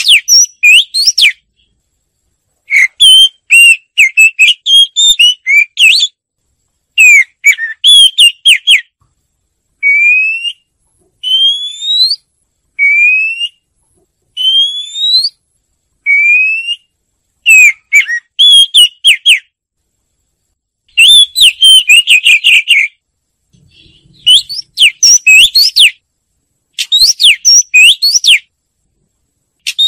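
Oriental magpie-robin singing: loud, varied whistled phrases broken by short silences. A run of six rising whistled notes, about one every second and a half, comes midway.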